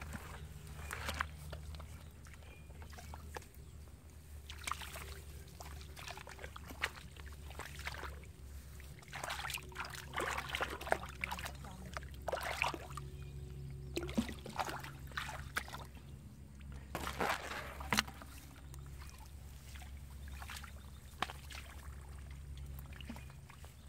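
Water sloshing and splashing in irregular bursts, busiest through the middle, over a steady low hum.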